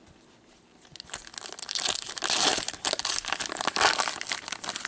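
Upper Deck Champs hockey card pack wrapper being torn open and crumpled: a dense crinkling and crackling that starts about a second in and keeps going almost to the end.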